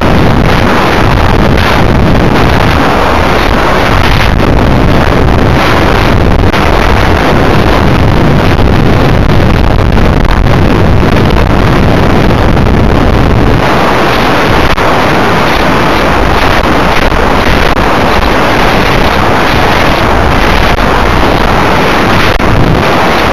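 Loud, steady wind rushing over the microphone of a rocket's onboard camera as the rocket comes down after its flight. The rush changes tone about fourteen seconds in.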